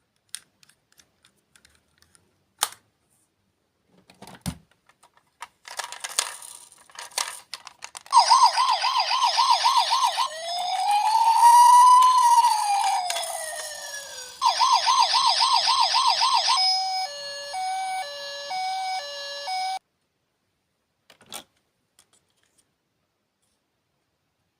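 Electronic siren cycling through its patterns: a fast yelp, one slow rise and fall, the fast yelp again, then a two-tone hi-lo that cuts off suddenly. Clicks and rustling of handling come before it.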